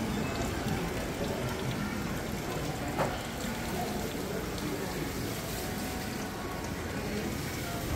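Market walk-through ambience: a steady wash of background noise with faint, indistinct chatter, and a single sharp knock about three seconds in.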